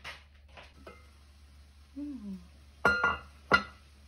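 Stainless steel saucepan lid clanking twice against metal, about half a second apart near the end, each strike ringing briefly: the lid being lifted off the pot of boiled potatoes and set down.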